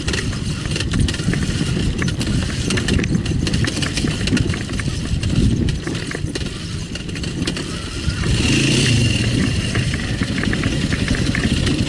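Enduro dirt bike engine running, with a louder burst of revs about eight seconds in, then settling into an even, pulsing beat near the end.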